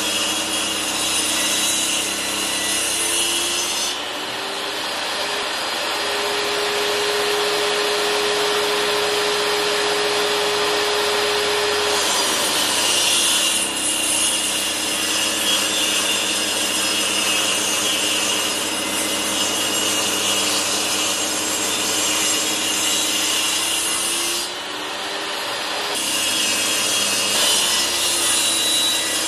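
Table saw cutting a cove, the board fed at an angle across the spinning blade so that the blade scrapes a hollow into its face: a steady loud cutting rasp over the motor's hum. The rasp eases for several seconds about four seconds in and again briefly near the end, as the hum rises in pitch with less load on the blade.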